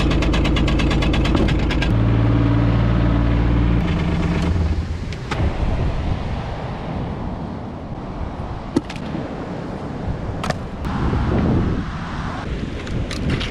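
A UTV engine running with a fast rattle for about four seconds, then cutting off abruptly. After it, a few sharp knocks of driftwood logs being handled.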